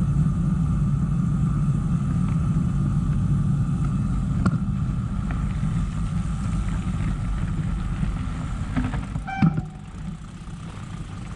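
Touring bicycle rolling along the road, heard as a steady low rumble of wind buffeting the microphone and tyre noise; the rumble drops away about nine and a half seconds in as the bike slows to a stop.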